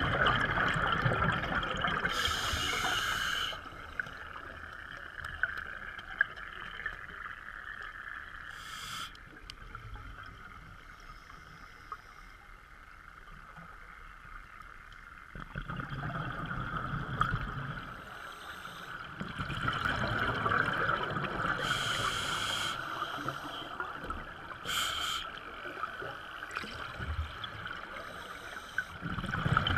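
Underwater sound of a scuba diver breathing through a regulator: exhaled bubbles gurgle in several bursts a few seconds long, over a steady hiss.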